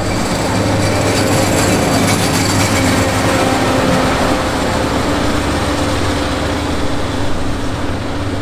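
Plasser & Theurer heavy track-maintenance machine and a rail-grinding unit on a MAN road-rail truck passing close at low speed: steady diesel engine hum with wheels rumbling on the rails, loudest a few seconds in and slowly easing off.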